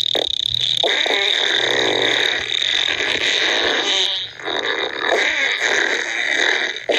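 Fart sound effect: farting noises that sputter on without a break, some stretches rapidly fluttering, with a short dip about four seconds in.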